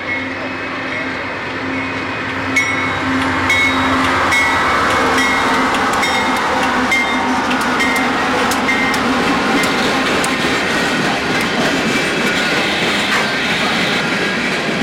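Union Pacific passenger cars rolling slowly along the track, steel wheels clicking over the rail joints, with short high-pitched squeaks repeating throughout.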